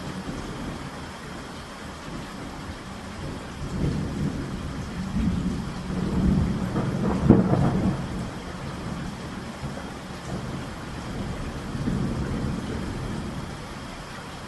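Steady rain over a long roll of thunder that builds from about four seconds in, peaks with a sharp crack around the middle and rumbles away, followed by a smaller rumble near the end.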